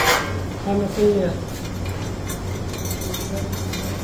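Steel bolts and parts of a mini crane's boom clinking and clicking lightly as they are handled and fitted, several short clinks in the second half, over a steady low hum.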